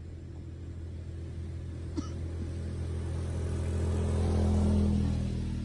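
Low engine hum of a passing motor vehicle, growing louder to a peak about four to five seconds in and then fading. A single sharp click about two seconds in.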